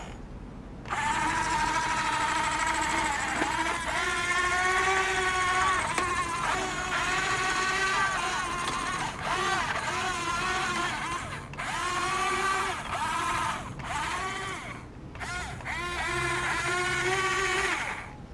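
Electric motors of a Huina 15-channel RC excavator whining as the machine works, the pitch dipping and rising as the arm moves and takes load. The whine starts about a second in and cuts out briefly a few times.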